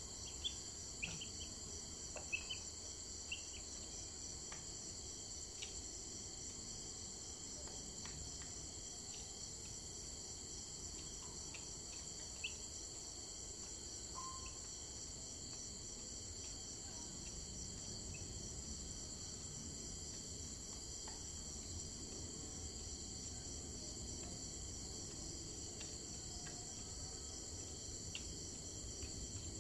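Steady insect chorus: a continuous high-pitched drone of calling insects with an even pulsing texture. A few short high chirps sound over it, mostly in the first few seconds.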